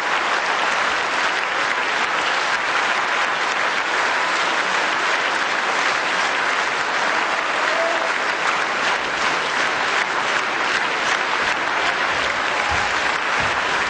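A large theatre audience applauding, dense clapping that holds at a steady level throughout.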